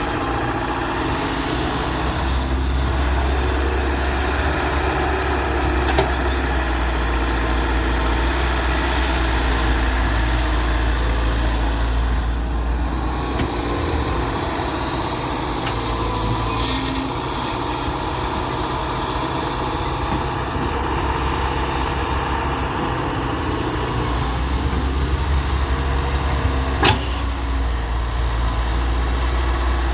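Hyundai excavator's diesel engine running steadily, its low drone swelling and easing as it works, with a sharp knock near the end.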